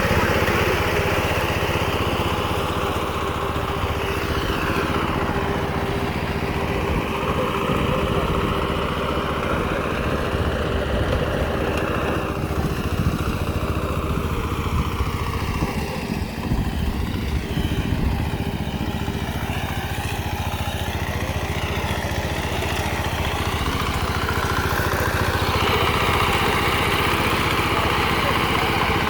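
Rice reaper's small engine running steadily as the machine cuts rice, its pitch drifting slowly up and down without a break.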